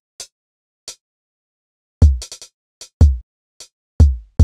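Sampled drum kit playing back from MIDI notes: a couple of short hi-hat ticks, then from about two seconds in a deep kick drum about once a second, with hi-hat ticks between and two kicks in quick succession near the end. The hits are single kick and hi-hat samples cut from a stereo drum recording and retriggered through a sampler.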